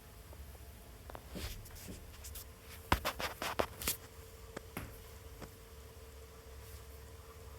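Arctic P14 Max 140 mm PC fan spinning at very low speed, about 5%, and rattling: irregular clicks and rattles through the first half, the sharpest about three seconds in. A steady hum runs on after them.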